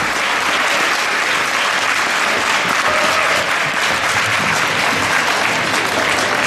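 Audience applauding in a sports hall: a steady, dense round of clapping.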